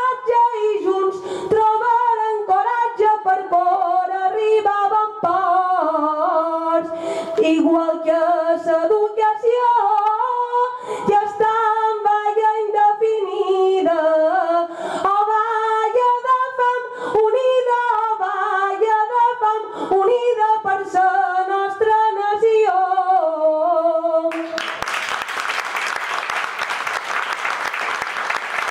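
A woman singing an unaccompanied Mallorcan glosa, improvised sung verse in a chant-like melody, into a microphone, ending on a held note. Audience applause breaks out about 24 seconds in.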